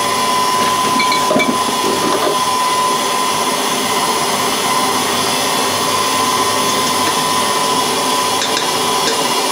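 Electric mixer running steadily with a steady motor whine as it beats milk, sugar and butter in its bowl.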